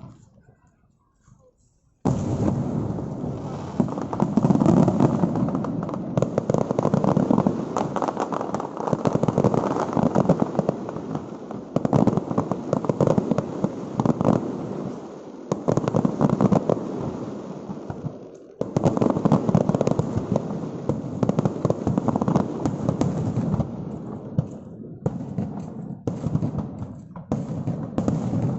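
Aerial fireworks shells bursting in a dense, continuous barrage of booms and crackles, starting suddenly about two seconds in, with a brief lull about two-thirds through and sparser bangs near the end.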